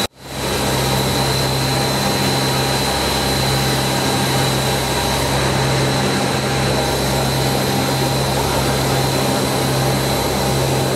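Steady drone of the YS-11's two Rolls-Royce Dart turboprop engines heard from inside the cockpit in flight: a low hum with a thin high whine over it. The sound cuts out for an instant at the very start and swells back up.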